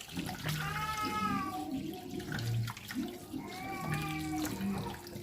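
Water running from a tap into a sink, with two drawn-out high cries that rise and fall in pitch, one about a second in and another near four seconds.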